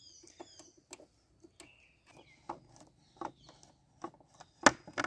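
Small birds chirping in short falling notes, over scattered light clicks and ticks of the hex key and loosened screws being handled on the motorcycle's plastic fairing. A single louder sharp knock comes near the end, as the windscreen visor is worked loose.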